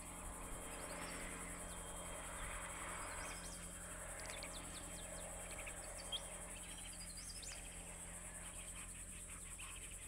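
Steady, high insect buzz from the surrounding scrub, with short, high bird chirps scattered through the middle.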